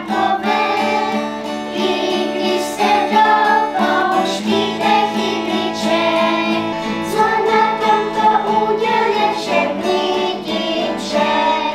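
Children singing a song with acoustic guitar accompaniment.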